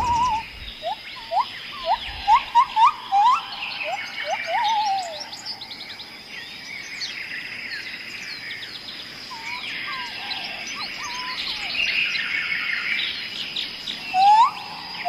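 Several birds singing together in a mixed chorus. One repeats short, quick upward-sweeping whistles in fast runs during the first few seconds and again near the end, while others twitter and chirp at a higher pitch throughout. A thin, steady high-pitched tone runs underneath.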